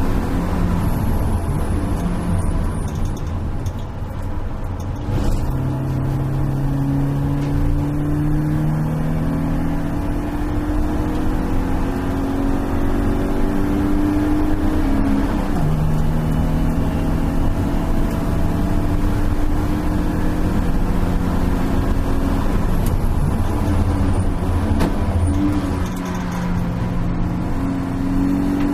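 A BMW E36 318is race car's stock four-cylinder engine, heard from inside the stripped cabin, running under load on track. Its note climbs in pitch for long stretches and drops back at each gear change or lift, with road and tyre noise underneath.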